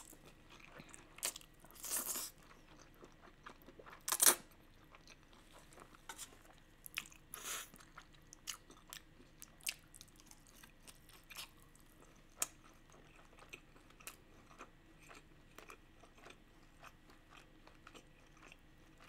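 Close-miked eating of spicy fire noodles and beef: a few louder slurps of noodles in the first few seconds, then wet chewing with many small mouth clicks.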